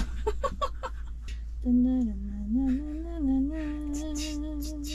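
A few short smacking sounds, then a person humming a slow tune. The humming starts about a second and a half in: one voice that dips, rises and holds a note near the end.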